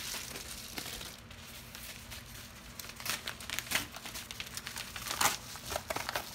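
Packaging being handled and opened by hand: irregular crinkling and crackling, with a few sharper tearing sounds about halfway through and again near the end.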